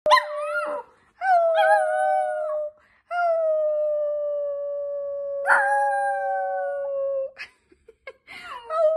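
Dachshund puppy howling in a high, steady voice: a short howl, a second of about a second and a half, then one long howl of about four seconds, with another starting near the end.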